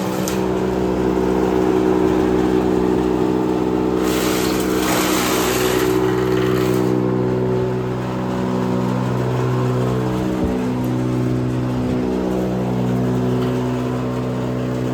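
Chop cutter running steadily with a constant machine drone, with a louder rushing noise from about four to seven seconds in.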